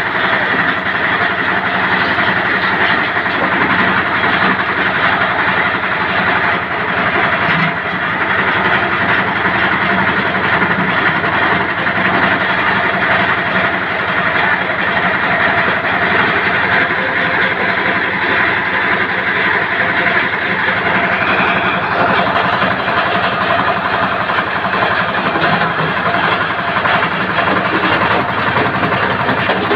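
Belt-driven brick crusher running loudly and steadily, its crushing chamber clattering as it breaks brick into fragments.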